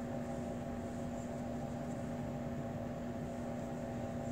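Steady room hum: a constant low tone over an even hiss, unchanging throughout.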